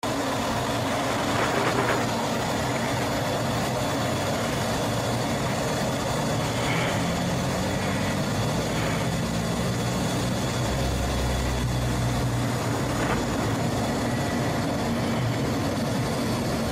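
Fighter jet engine and airflow noise heard inside the cockpit, a steady rushing roar through the takeoff roll and climb-out, with a heavier low rumble for a second or two near the middle.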